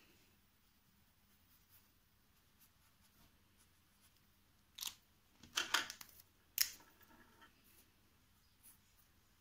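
Felt-tip markers handled on a wooden table: a few short clicks and scrapes a little past halfway, as one marker is put down and another picked up and uncapped, with faint scratching of a marker tip on toilet paper in between.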